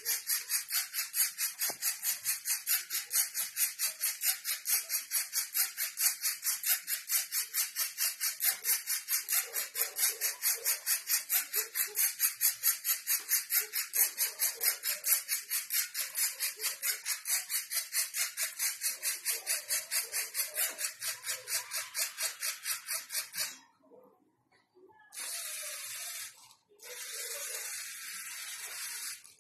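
LEGO Mindstorms NXT robot's motors and gears running in a fast, regular pulsing, about three pulses a second, as it drives along the line; the pulsing stops about 23 seconds in. A steady hiss follows in two short stretches near the end.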